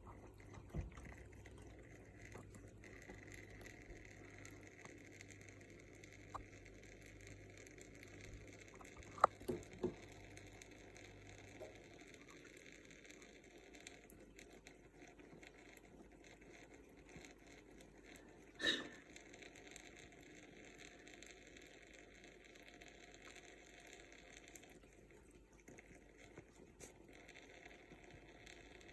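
Faint steady trickle of running tap water. A few soft knocks come near the start and around ten seconds in, and a louder brief noise comes a little past halfway.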